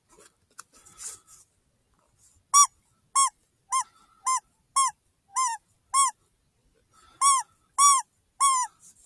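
Predator call sounding a series of short, clear, high cries, each rising then falling in pitch: seven about two a second, a pause of about a second, then three more.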